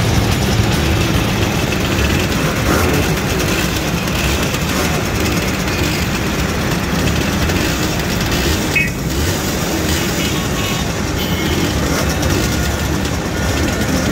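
A group of Simson two-stroke mopeds running together, a steady mix of small engines.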